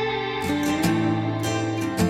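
Background music of plucked guitar notes.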